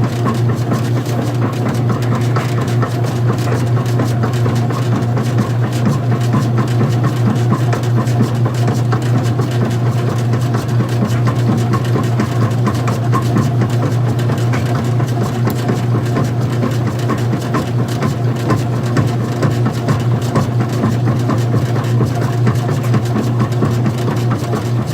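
Old-style front-loading washing machine running with its top off: a steady motor hum under a busy mechanical rattle.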